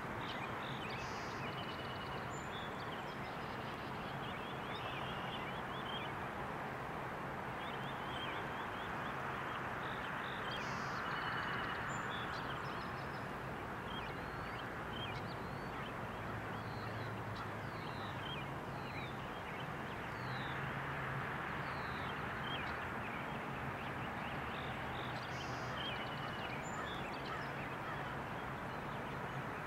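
Outdoor evening ambience: a steady hiss with a faint low hum under it, dotted throughout with many short, high chirps and peeps from small animals.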